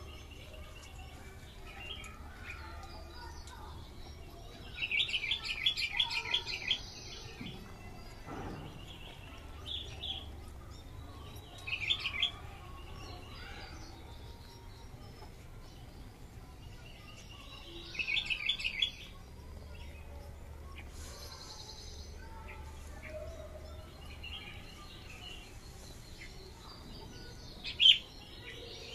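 Small birds chirping in short bursts of rapid trills a few seconds apart, with one sharp chirp near the end as the loudest sound, over a faint steady background hum.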